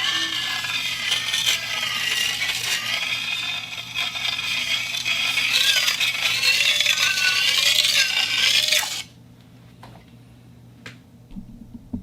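Metal plate scraping against a turntable, a rough grinding scrape with wavering squeals that bend up and down in pitch. It cuts off abruptly about nine seconds in, followed by a few faint clicks.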